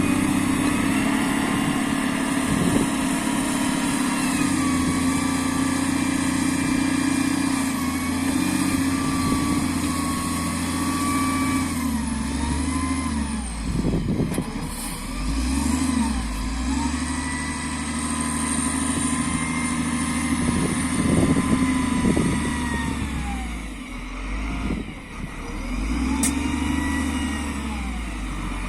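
SDLG L968F wheel loader's diesel engine running and revving as it works, with whining tones that rise and fall and dips in engine speed twice, about halfway through and near the end.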